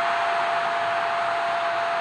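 Stadium crowd cheering a goal: a dense, steady wall of voices, with a single held tone sounding through it.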